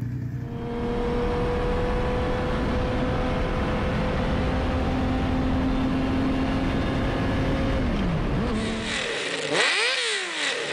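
A motorcycle engine pulls at a steady road speed with wind and road noise, its pitch easing off about eight seconds in. Then a Honda CBX1000's air-cooled six-cylinder engine, breathing through six open megaphone pipes, is revved in quick blips, its pitch rising and falling sharply.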